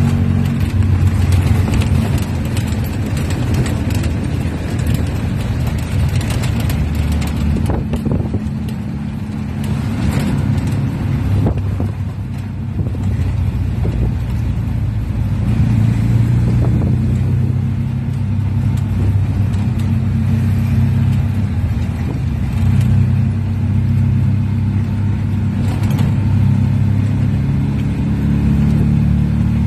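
Owner-type jeep's engine running under way, heard from the driver's seat along with road noise. The engine note eases off for a couple of seconds around ten seconds in, then picks back up and runs steadily.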